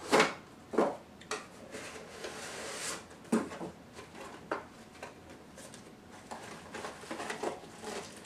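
Handling noise from a GoPro camera and its packaging being taken out and turned over in the hands: irregular sharp clicks and knocks, the loudest right at the start and about a second in, with a rustle around two to three seconds in.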